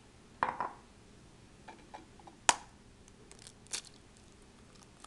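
Eggs being cracked on a ceramic bowl: a few sharp taps and cracks of shell, the loudest about two and a half seconds in.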